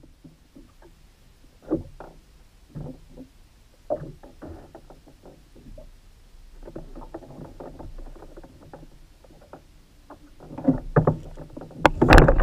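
Scattered knocks and thuds on the plastic hull of a Hobie Outback fishing kayak as the angler shifts while fighting a fish on a bent spinning rod. Near the end comes a loud splash as the hooked dentex breaks the surface beside the kayak.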